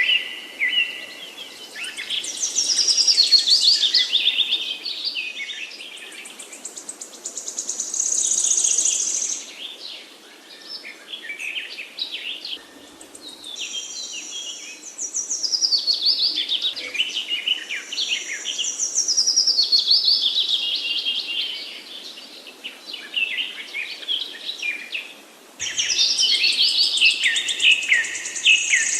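Woodland songbirds singing: a run of rapid, varied song phrases with short pauses between them. One phrase cuts in suddenly and louder near the end.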